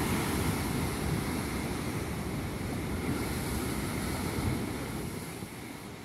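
Big ocean surf breaking and washing in, a steady rushing noise that gradually fades, with wind on the microphone.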